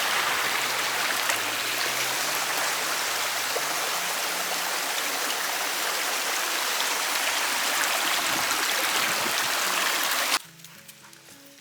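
Creek water rushing steadily, cutting off abruptly about ten seconds in, after which faint music is heard.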